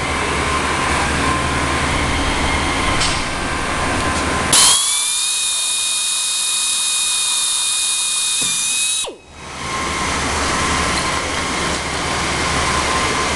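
A high-speed handheld drill boring a snap hole through a painted trike fender. Its steady high-pitched whine starts about a third of the way in, holds for about four and a half seconds, then cuts off suddenly and winds down briefly. A steady background hum runs before and after it.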